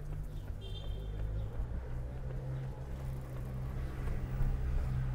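City street traffic: a motor vehicle's engine running close by as a steady low rumble, with a brief high-pitched chirp about a second in.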